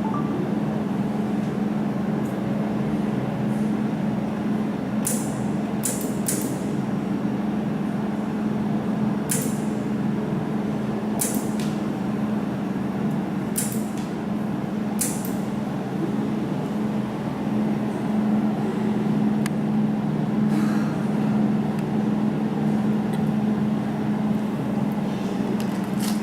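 Jewelry laser welding machine humming steadily, with about eight sharp ticks from single laser pulses firing, scattered in small groups through the middle.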